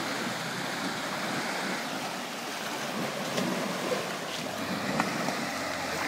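Steady rushing and churning of creek water around a Jeep Wrangler JK wading through it, with a couple of faint knocks about three and a half and five seconds in.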